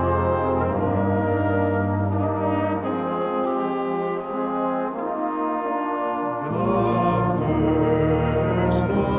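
Brass band playing sustained chords in a slow instrumental passage. The low bass drops out about three seconds in, and the full band comes back in louder around six and a half seconds.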